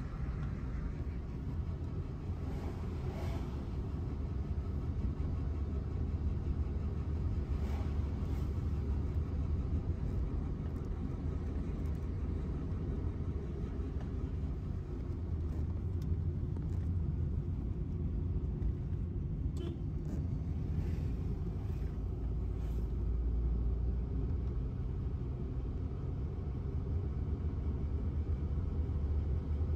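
Steady low rumble of a road vehicle driving at speed: engine and tyre noise, with a few faint brief ticks.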